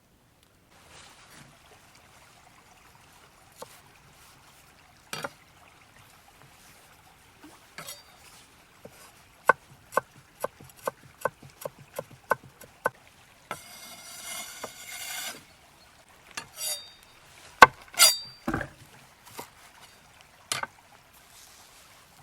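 A knife chopping on a wooden board, about ten quick even strokes at roughly three a second, with scattered knocks before and after and a brief hiss in between.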